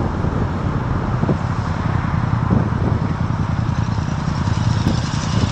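Motorcycle engine running with a steady low rumble as the bike rolls to a stop.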